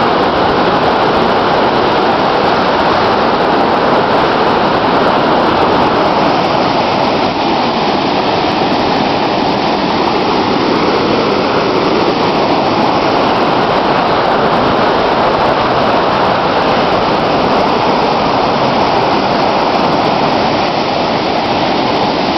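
Bow River floodwater pouring through the open spillway gates of Bearspaw Dam, a loud, steady rush of falling water with no letup, the dam passing a flood-level discharge.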